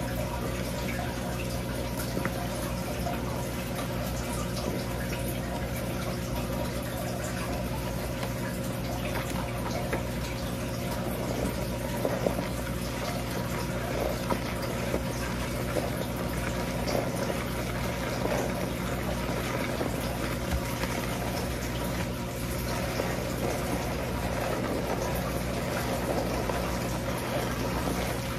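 Water running at a shampoo basin while hands massage thick shampoo lather through wet hair, over a steady low hum.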